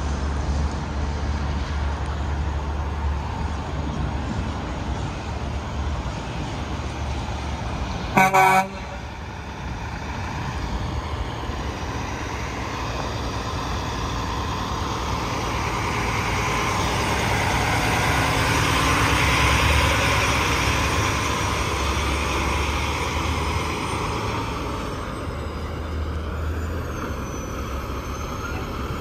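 Highway traffic rumbling past steadily, broken about eight seconds in by one short horn toot, the loudest sound. A passing vehicle then swells up and fades away, loudest about twenty seconds in.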